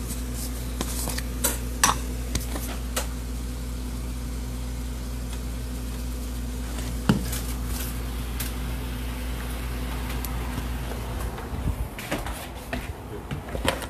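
Scattered clinks and knocks of kitchen utensils and containers against a pan while chicken wings are seasoned and dredged in flour, over a steady low hum that stops about eleven seconds in.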